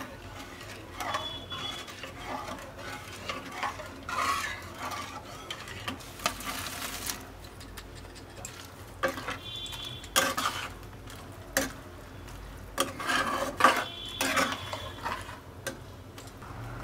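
Metal spatula stirring and scraping through thick prawn masala curry in a non-stick pan, in uneven strokes with occasional clinks against the pan, while the masala sizzles faintly.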